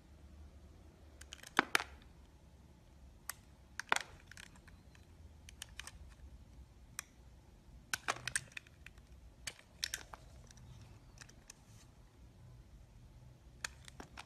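Metal blade cutting and shaving a bar of translucent soap: crisp crackles and clicks in short clusters a few seconds apart.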